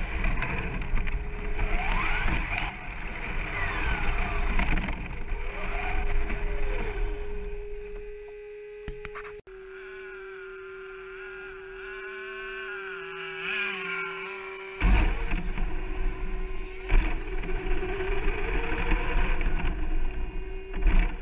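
Onboard sound of a brushless 1/10 scale RC short course truck driving over gravel: a motor whine that glides up and down in pitch as it speeds up and slows, over a rumble of tyres and wind. About nine seconds in it goes quieter for several seconds, then the louder driving noise returns.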